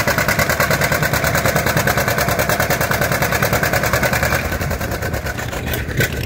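Small antique tractor's engine working under load as it pulls a weight sled, firing with a rapid, even beat. About four seconds in it eases off as the pull is stopped. A single knock comes near the end.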